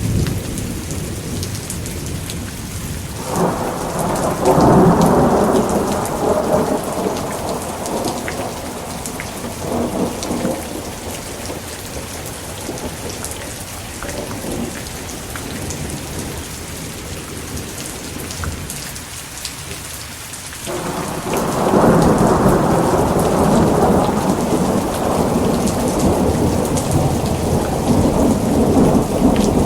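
Thunderstorm: steady rain with two long rolls of thunder. The first breaks about three seconds in and fades over several seconds; the second starts suddenly about two-thirds of the way through and is still rumbling at the end.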